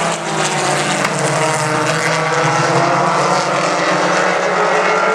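A pack of four-cylinder mini stock race cars running hard together on the restart after the green flag, many engine notes overlapping in a steady drone.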